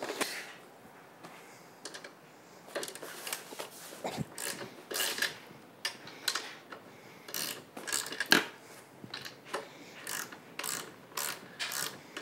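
Ratchet wrench clicking in short, irregular bursts as bolts are loosened on a mobility scooter's transaxle.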